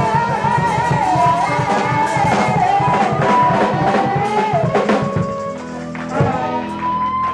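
Live band music: a harmonica played through a microphone holds and bends notes, over a drum kit and upright bass keeping a steady beat.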